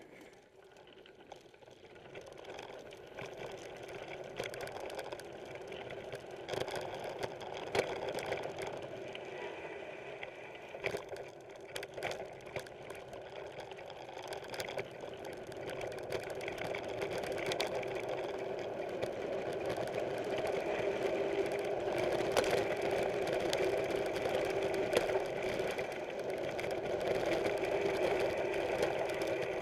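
Mountain bike in motion: a steady mechanical buzz that slowly grows louder as speed builds, with scattered clicks and rattles.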